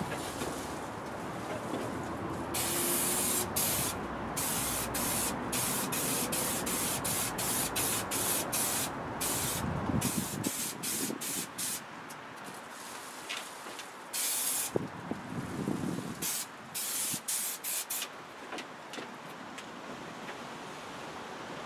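Aerosol can of spray adhesive hissing in many short bursts, with a few longer ones, as glue is sprayed to fix foil insulation to the van's bare metal panels.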